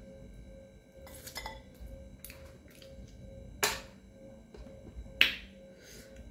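Close-up eating sounds: chewing and wet mouth clicks on tough dried yak meat, with fingers picking food off a metal plate. Two sharp smacks stand out, about a second and a half apart, past the middle.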